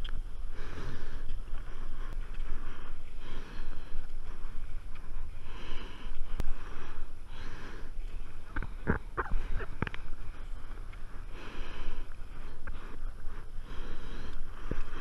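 Stand-up paddleboard paddle strokes in calm sea water: repeated splashing swishes, one every second or so, with a few sharp knocks in the middle and one near the end.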